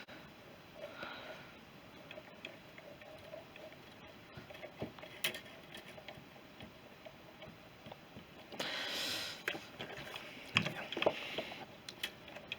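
Faint, scattered clicks and light knocks of carburettor parts being handled and fitted, with a louder rustle lasting about a second and a half, starting a little past eight seconds in.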